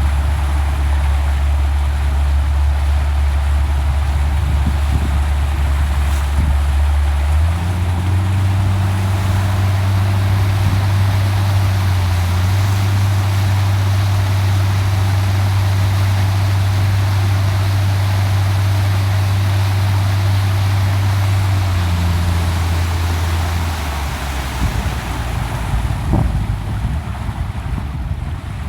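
Motorboat engine running at a steady speed under wind and water rush. Its drone rises a step in pitch about a quarter of the way in, then falls away near the end, leaving wind and splashing water.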